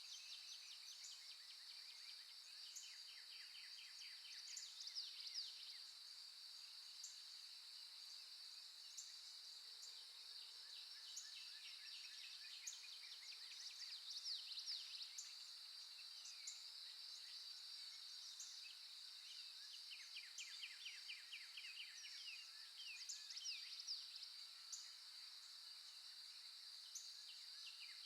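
Faint nature recording of birdsong over a steady, high insect trill, with repeated runs of fast, ticking chirps and short whistled notes scattered throughout.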